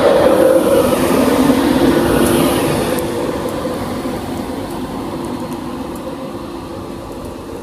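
Class 91 electric locomotive and its Mark 4 coaches pulling out past a platform: a steady electric hum over wheel and rail rumble, loudest as the locomotive passes, then fading as the coaches roll by and the train draws away.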